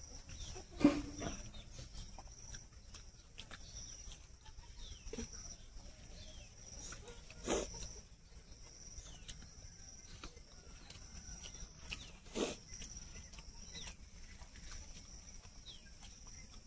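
Rural outdoor background: birds chirping now and then over a steady high-pitched drone, broken by three short knocks, the loudest about a second in.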